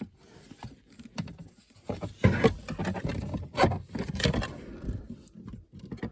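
An interior trim panel being handled and fitted back into place: irregular scrapes, clicks and knocks, busiest around the middle.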